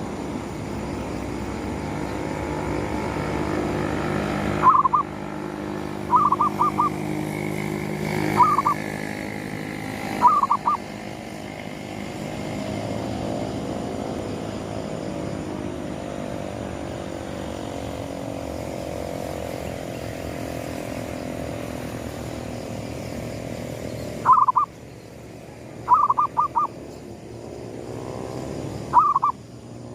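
Zebra dove (perkutut) cooing: phrases of short, quick notes in small clusters, one run of phrases about five seconds in and another starting near 24 seconds, over a steady low background hum.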